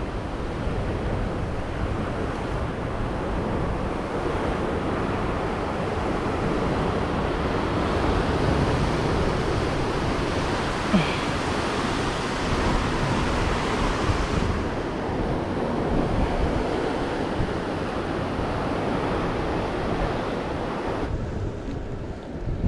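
Steady rush of sea surf and wind, with wind buffeting the microphone; the hiss thins out near the end.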